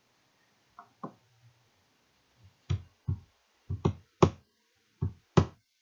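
Clicking at a computer: a couple of faint clicks about a second in, then about seven sharper, irregularly spaced clicks of mouse buttons and keys in the last three seconds.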